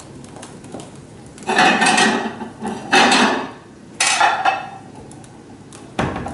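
Ceramic plates and dishes clattering as they are handled from a kitchen cabinet, in three loud bursts, with a sharp knock near the end.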